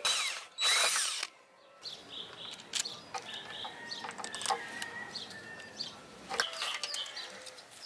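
Cordless drill/driver running in two short bursts during the first second or so, driving in the screw that mounts the HID relay harness. Faint clicking and rustling of plastic connectors and wiring follow.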